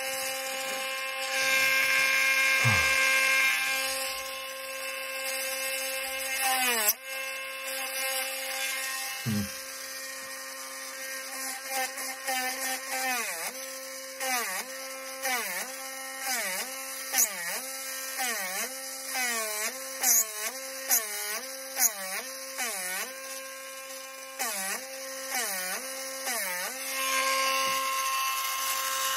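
Small rotary tool running at high speed with a countersink bit cutting into a wooden fingerboard's drilled holes. Its steady whine dips in pitch and recovers about once a second from midway on as the bit is pressed into the wood in short bursts and lifted out.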